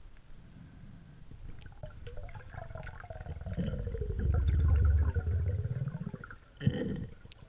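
Underwater water noise around a diver's camera as he moves: a low rumble with bubbling that swells to its loudest around the middle and fades, then a short burst of bubbling near the end.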